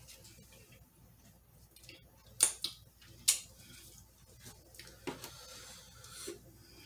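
Close, quiet eating and food-handling sounds: two sharp clicks about a second apart, then a few softer small noises, as flour tortillas are torn and folded.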